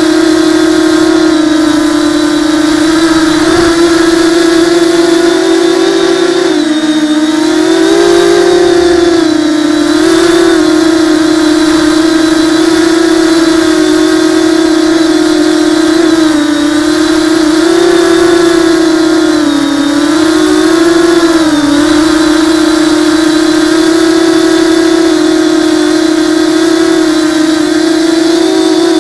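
Brushless motors and propellers of a ZMR hexacopter in flight, picked up by its onboard camera: a loud, steady whine that dips in pitch and recovers several times as the motors slow and pick up again, about seven and ten seconds in and again around twenty and twenty-two seconds.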